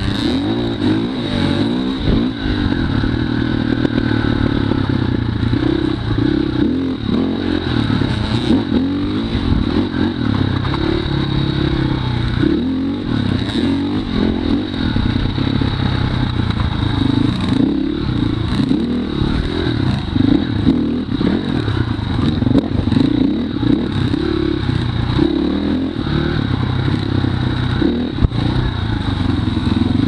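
Dirt bike engine running close by under a rider, its pitch rising and falling as the throttle is opened and eased off over rough, muddy ground.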